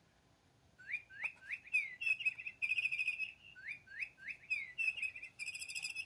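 Electronic bird toy playing its recorded birdsong: a few quick rising chirps and then a trill, the same call played twice in a row.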